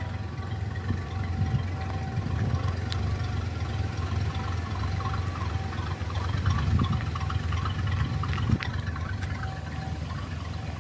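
1965 Mercury Park Lane's V8 idling at the exhaust tips, a steady low burble that swells slightly about six to seven seconds in.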